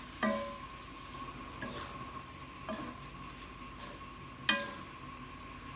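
Noodles being stir-fried in a pan with a low sizzle, a spatula stirring them and knocking against the pan four times, loudest about four and a half seconds in.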